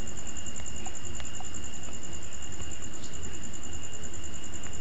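A steady, rapidly pulsing high-pitched trill with a fainter steady high tone below it, over a low hum.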